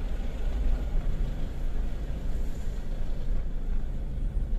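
Steady rumble of a moving road vehicle's engine and tyres, heard from on board while driving.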